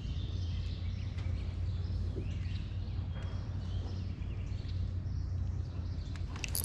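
Outdoor lake ambience: a steady low hum with a few faint bird chirps.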